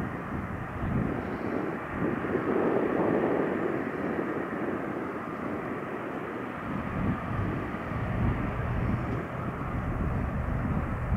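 Jet engines of taxiing Boeing 737 airliners at low power: a steady, distant rush and rumble that swells a little a few seconds in.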